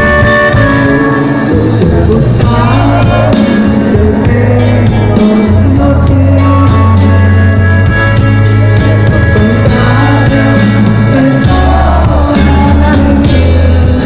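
Live norteño band music, loud and continuous, with accordion, electric bass, guitar and drum kit behind a singing voice, picked up by a phone in the crowd.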